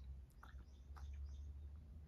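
Cat eating dry kibble from a ceramic bowl: a few faint crunches over a steady low hum.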